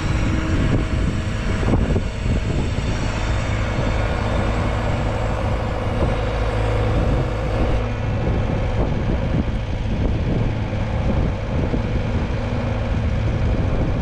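Skid steer engine running steadily.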